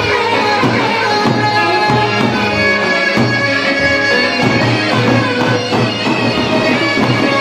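Loud traditional folk dance music for a halay line dance: a reedy, piercing wind-instrument melody over steady drum beats.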